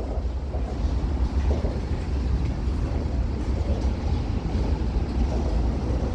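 Freight train cars rolling slowly past, a steady low rumble of steel wheels on the rails.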